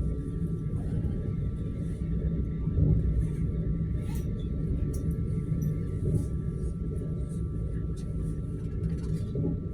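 Suburban electric train running, heard from inside the carriage: a steady low rumble with a faint steady high whine.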